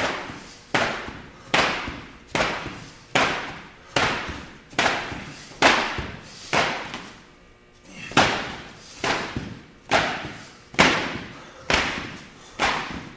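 Repeated heavy slams of gym equipment, about one every 0.8 seconds, each echoing briefly, with a short pause about two thirds of the way through.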